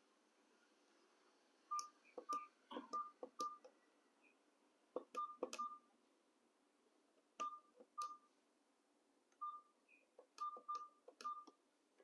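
Keypad of an ECG-900D GSM fixed wireless desk phone being pressed: about a dozen plastic key clicks, each with a short beep at one pitch, in small irregular groups with pauses between.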